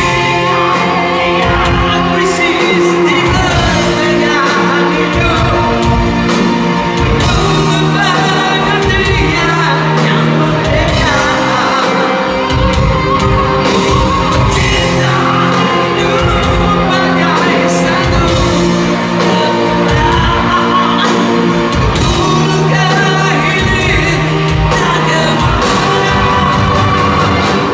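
A live rock band plays loudly with sung vocals over a steady kick-drum beat, heard through the echo of a large hall.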